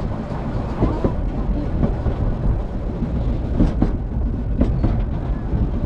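Narrow-gauge steam train of the Brocken railway running: a steady low rumble with a few sharp clacks in the second half.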